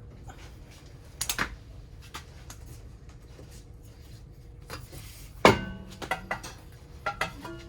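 Metal clinks and clanks of tools and brake parts being handled, with a loud ringing clank about five and a half seconds in.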